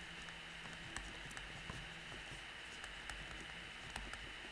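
Faint, irregular taps and scratches of a stylus on a tablet screen as letters are handwritten, over a steady low background hiss.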